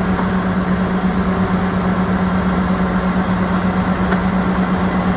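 Fire truck's diesel engine running steadily: a constant low drone with an even hiss over it.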